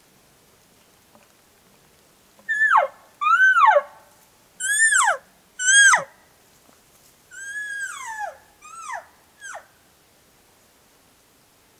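Elk mewing: seven short, high calls, each sliding steeply down in pitch, the last few fainter.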